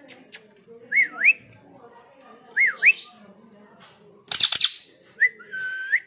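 Parrot whistling: two short swooping whistles that dip and then rise, a loud harsh squawk about four seconds in, then a longer whistle near the end.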